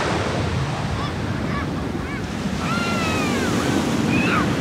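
Steady rush of surf and wind on the microphone. From about one to four seconds in, a few short, high, arching calls sound over it.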